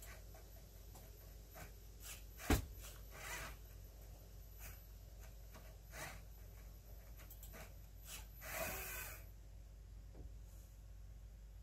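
LEGO Spike Prime pen plotter drawing: faint scratching of the pen on paper and light clicks from its motors and gears. A single sharp knock comes about two and a half seconds in, and a longer scratchy rustle comes near nine seconds.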